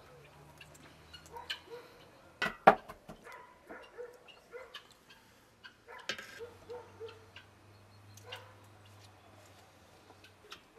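Food-preparation handling sounds: scattered taps and clinks of utensils against bowls and a pot, with one loud knock about two and a half seconds in and another about six seconds in.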